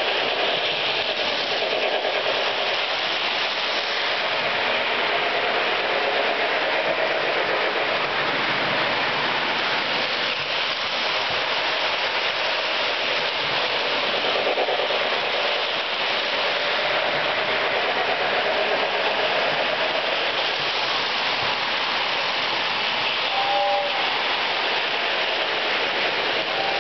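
Lionel model trains running on their track: a steady rolling rattle of metal wheels on the rails with a wavering electric-motor whine.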